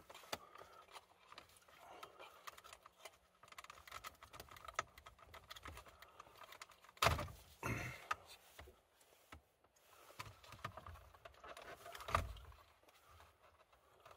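Plastic clicking and rattling as a car dashboard navigation display unit is handled and pried off its clips, with two louder knocks about halfway through and another near the end.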